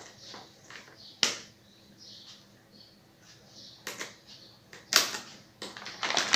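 Scissors cutting open a plastic-and-foil packet of dog chew sticks: a few sharp snips, with the packet crinkling between them.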